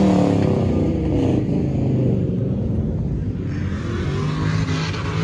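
Pickup truck engine running, its pitch falling just after the start and then settling to a steady run.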